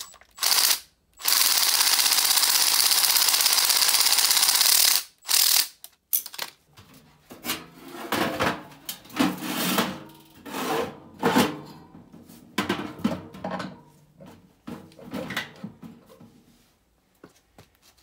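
Cordless drill spinning the clamp bolt on an ECM blower motor's mounting band: a short burst, then about four seconds of steady running, then another short burst. After that come irregular metal clunks and scrapes as the motor is set into the sheet-metal blower housing.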